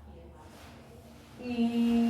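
A woman's voice holding one long, steady sound at an even pitch, starting about one and a half seconds in. It is one of the Ling six sounds, spoken to check that a child's cochlear implant is picking up sound.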